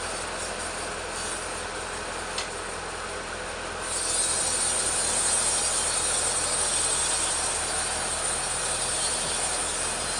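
Petrol chainsaw running steadily while ripping teak lengthwise, getting louder and hissier from about four seconds in.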